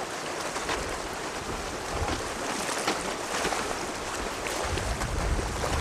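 Wind buffeting an open microphone on a beach, over the wash of small waves at the shore, with low gusty rumbles about two seconds in and again near the end.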